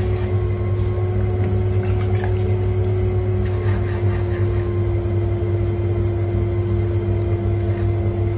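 Electric potter's wheel motor running at a steady speed with a constant hum. Faint wet squelches of slip-covered clay under the hands pulling up the pot's wall can be heard.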